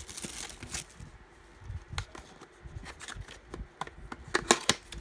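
Hands handling a cardboard trading-card mini box and its plastic wrapping: scattered light taps and rustles, with a few sharp clicks near the end.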